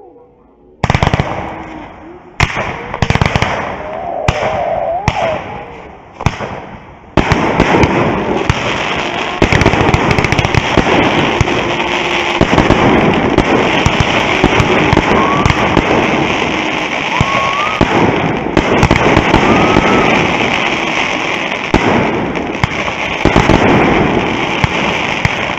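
Fireworks display going off: a handful of separate loud bangs over the first seven seconds, then a continuous dense barrage of crackling bursts.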